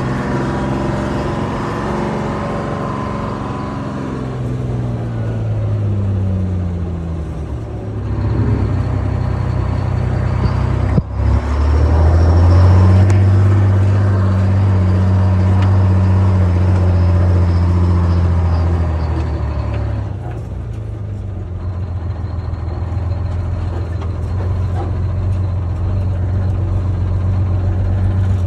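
Detroit Diesel 6-71 two-stroke inline-six diesel of a 1959 Walter truck running on the road, heard muffled from inside the cab through a phone in a shirt pocket. Its pitch falls a few seconds in and there is a brief knock about eleven seconds in. It then pulls louder and steadier for several seconds before easing off.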